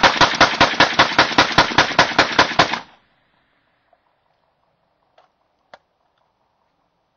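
Rock River .308 rifle with a 16-inch barrel and a QSM .30 titanium suppressor firing a rapid burst of suppressed shots, about six or seven a second, that stops about three seconds in. A few faint clicks follow.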